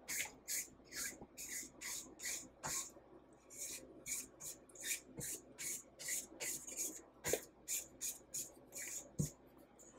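Silicone spatula scraping buttercream frosting off the sides of a stainless steel stand-mixer bowl, in quick repeated strokes of about three a second.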